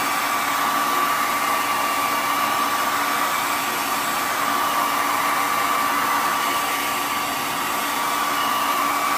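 Handheld blow dryer running steadily: a constant rush of air with a steady whine over it, blowing hot air onto wax crayons to melt them.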